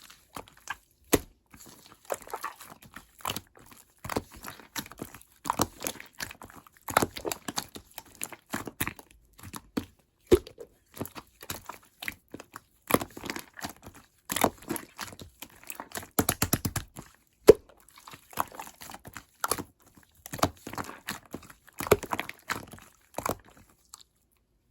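Orange slime being squished, poked and stretched by hand, making sticky clicks and small air-bubble pops, with a quick run of pops about two-thirds of the way through. The sounds stop shortly before the end.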